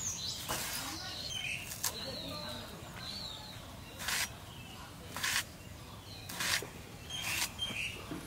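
A boti blade slicing through a water-taro (kochu) stem, short sharp cuts about a second apart. Small birds chirp between the cuts.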